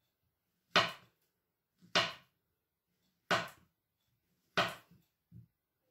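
A small knife slicing a banana on a plastic cutting board: four sharp knocks of the blade meeting the board, about one every 1.3 seconds, with a fainter fifth near the end.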